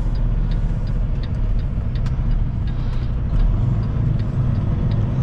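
Semi truck's diesel engine running, a steady low rumble heard from inside the cab as the truck rolls slowly, growing a little louder from about three and a half seconds in.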